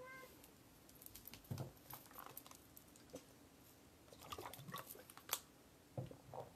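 Faint sips and swallows of drinking from a plastic water bottle, with small clicks and rustles of the bottle and a paperback being handled.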